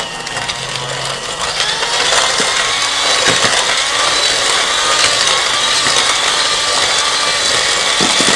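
Electric hand mixer running at medium speed, its twin beaters whirring through butter and sugar in a glass bowl to cream them. It runs steadily, a little louder from about two seconds in, with a few short clicks from the beaters.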